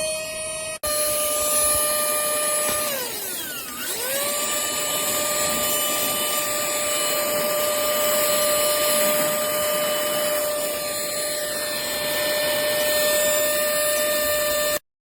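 Cordless mini handheld car vacuum running: a steady high motor whine over a rush of air. About three seconds in, the pitch dips sharply for about a second and then climbs back. The sound cuts off suddenly near the end.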